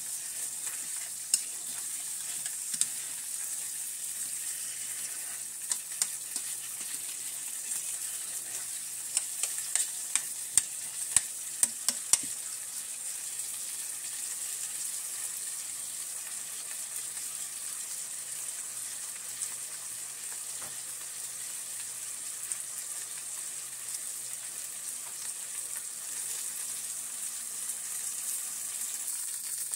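Chopped onions, bell peppers and celery sizzling steadily in a stainless steel pot. For the first twelve seconds or so a spoon stirring them clicks and scrapes against the pot now and then, and after that only the steady sizzle remains.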